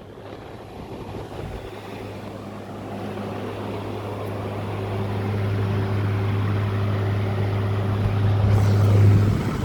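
Midea 5,000 BTU window air conditioner running on high fan setting: a steady electric hum from the fan motor under a rush of moving air that grows steadily louder over the first six seconds or so.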